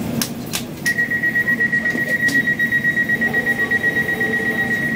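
Door-closing warning on an Elizabeth line Class 345 train at a platform: a few clicks, then from about a second in a rapid, even beeping at one high pitch, about five beeps a second, over the low hum of the stationary train.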